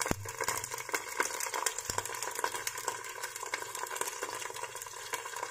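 Chilies and onion frying in oil in a covered wok, crackling and popping steadily under a glass lid, over a faint low steady hum.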